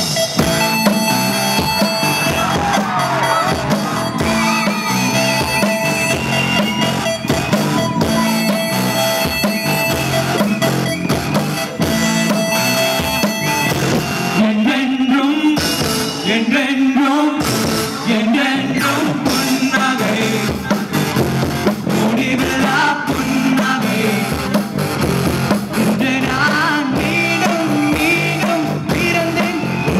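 Live amplified rock band with electric guitar and keyboard playing. About halfway through, a male singer comes in on the microphone.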